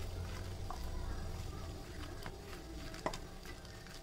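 A hand mixing thick urad dal vada batter with chopped onion, green chilli and curry leaves in a steel bowl: soft squishing and scraping against the bowl, with a sharper click about three seconds in.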